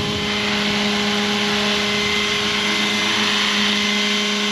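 Roban 600-size Hughes MD500 scale RC helicopter hovering low at its highest head speed, about 1600 rpm. Its rotor and drive give a steady whine over a wash of rotor noise.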